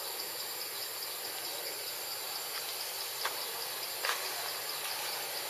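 Steady high-pitched chorus of insects, with two short sharp clicks a little under a second apart past the middle.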